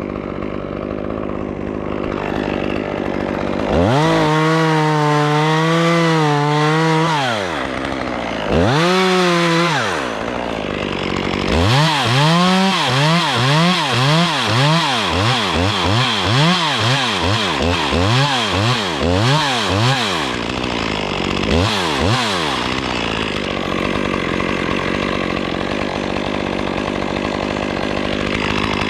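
Chainsaw idling, then revved high and held for a few seconds, twice. Next comes a long run of quick throttle blips, the engine revving up and dropping back about once a second for several seconds, before it settles to a steady idle near the end.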